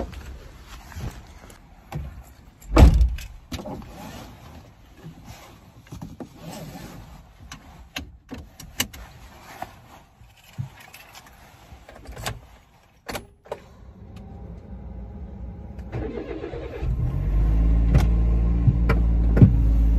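Sounds of settling into a car: a heavy thump about three seconds in as the door shuts, then rustling of a coat and small clicks. Near the end the car's engine starts and runs at a steady idle.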